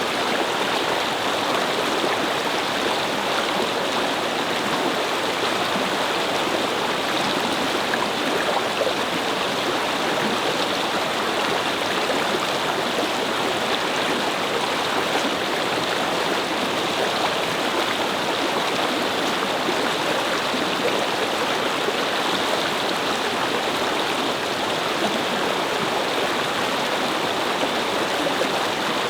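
Shallow brook flowing and babbling over stones, a steady rush of water.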